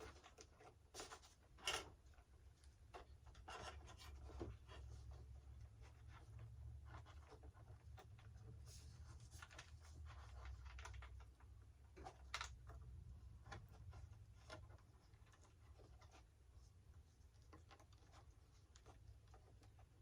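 Near silence, with faint scratching, rustling and light ticks from hands handling wires and parts, and a low hum in the middle.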